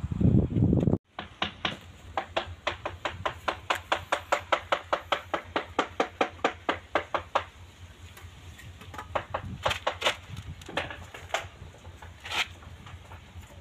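A low rumble that cuts off suddenly about a second in, then a quick, even run of light, sharp taps, about five a second, on the edge of a ceramic-tiled brick tabletop. After the run come a few scattered taps.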